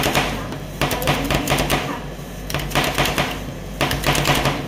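Two metal spatulas chopping and mashing blueberry ice cream base on a stainless-steel cold plate: rapid clattering taps in quick runs with short pauses between them, over a steady low hum.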